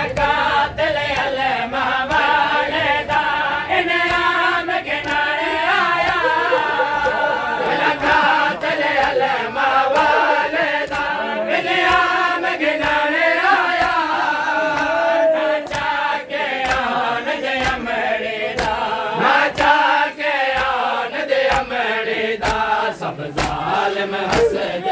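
Group of men chanting a noha, a Shia lament, in unison, with sharp rhythmic slaps of matam (hands striking chests) keeping the beat.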